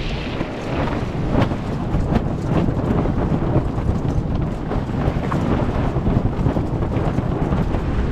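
Strong wind buffeting the microphone on the deck of a sailboat under way in rough sea, a loud, steady rumble broken by many short sharp cracks.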